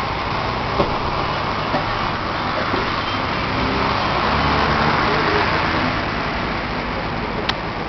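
Steady engine and road noise of a moving road vehicle heard from on board, swelling a little midway, with one sharp click near the end.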